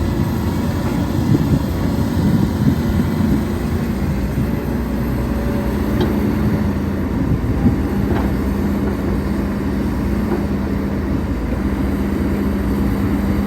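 Hidromek HMK230LC excavator's diesel engine running steadily with a constant hum, with a few sharp knocks around the middle.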